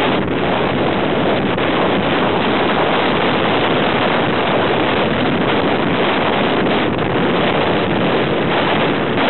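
Strong wind buffeting the microphone, a loud, steady rush of noise with no letup.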